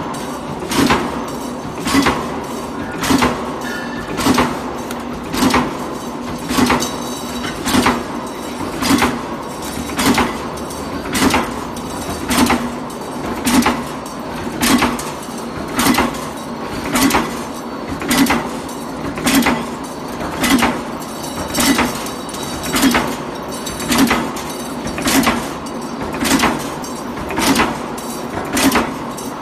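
J23-63T punch press stamping TDF duct corners from sheet-metal strip, one heavy strike about every 1.2 seconds in an even rhythm, over the steady hum of the running line.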